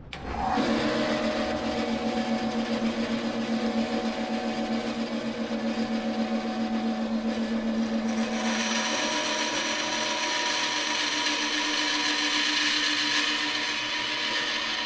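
Bandsaw switching on and running steadily, then its blade cutting through a short piece of three-quarter-inch metal channel held in a sled; the cut adds a higher hiss from about eight seconds in.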